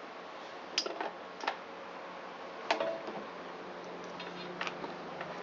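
A few separate sharp clicks and light knocks of tools and small metal parts being handled while a generator's ignition coil is fitted, the loudest about two-thirds of the way in with a short ring after it.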